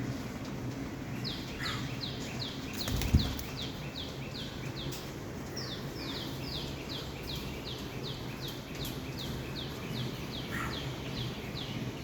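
A bird singing two long runs of quick, falling high-pitched notes, about four a second, with a short pause between the runs. A single loud thump sounds about three seconds in, over a steady low background rumble.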